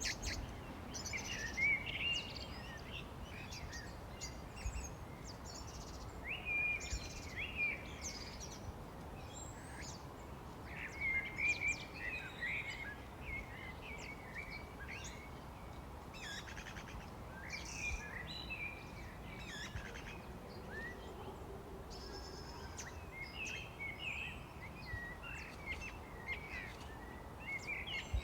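Several songbirds singing and chirping in a spring chorus: short chirps and warbled phrases in bursts, some clusters louder than others, over a steady low background rumble.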